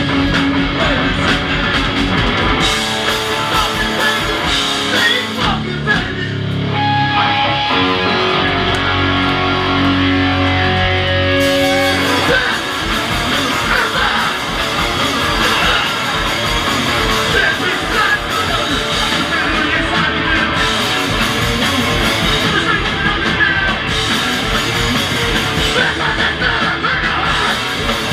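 Hardcore punk band playing live, with loud distorted guitars, bass, a drum kit and shouted vocals. Around six seconds in the band breaks to a few held notes, then comes crashing back in about twelve seconds in.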